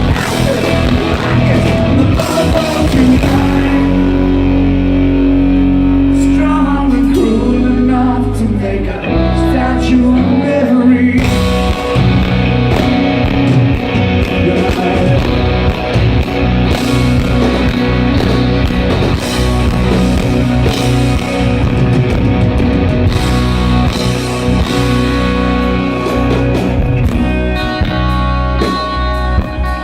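Live rock band with guitars, bass and drums playing an instrumental stretch of a song. Held guitar notes slide downward about eight seconds in. The bass drops out for a moment, then the full band crashes back in at about eleven seconds.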